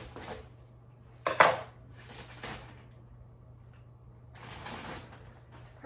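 A bag of potting soil being handled and opened, with bursts of crinkling and rustling; the loudest, sharpest crackle comes about a second and a half in.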